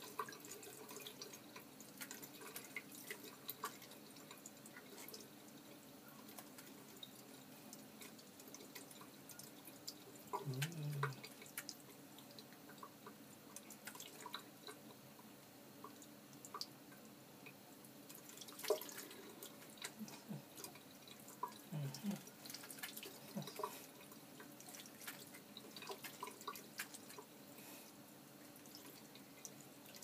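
Thin stream from a bathroom sink tap splashing onto cupped wet hands and a bathing lovebird, with many scattered small drips and splashes.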